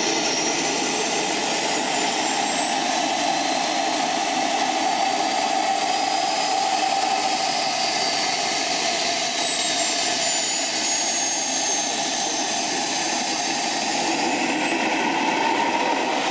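Remote-control model airplane's motor and propeller running steadily, with a high whine that slowly rises and falls in pitch.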